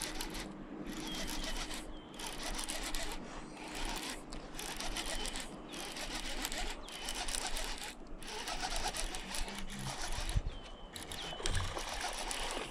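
Fishing reel being cranked to bring in a hooked fish, its gears rattling in bursts of about a second with short pauses. Near the end the fish splashes at the surface.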